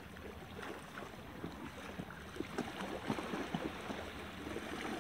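Small waves lapping irregularly on a rocky shoreline, with wind on the microphone.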